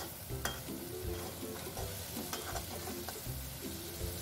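Chopped tomato, chilies and aromatics sizzling in hot oil in a wok as they are stir-fried, with a metal spatula scraping and clicking against the pan several times.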